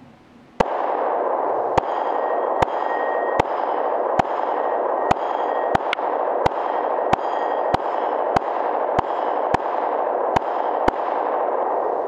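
Glock 17 9mm pistol fired about fifteen times at a steady pace, roughly a shot every two-thirds of a second, starting about half a second in. The AR500 steel targets ring after some of the hits. A steady hiss runs behind the shots.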